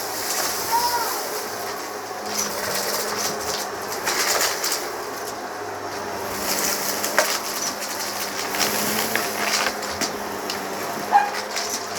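Sandstorm vacuum cleaner running with the microphone mounted on it, a steady motor noise under a low hum, with short crackles and rattles as it is worked over a rug.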